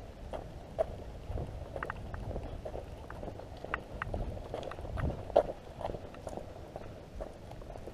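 Footsteps on a concrete canal walkway, an uneven run of low thuds with scattered small clicks and scuffs.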